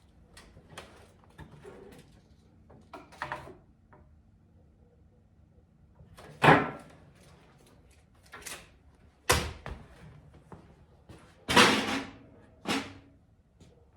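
Irregular knocks and thumps as a wooden shelf is handled and fitted against a wall, about seven in all. The loudest comes about six and a half seconds in, and the one near twelve seconds drags on for nearly a second.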